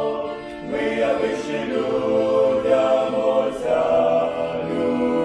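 Male vocal ensemble singing a Ukrainian Christmas carol (koliadka) in several parts. A held chord fades away about half a second in, and the next phrase begins just under a second in.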